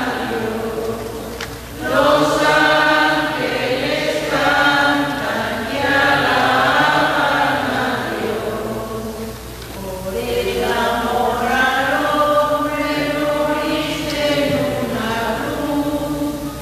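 Choir singing a slow, chant-like hymn in long sustained phrases, with short breaks about two seconds in and about ten seconds in.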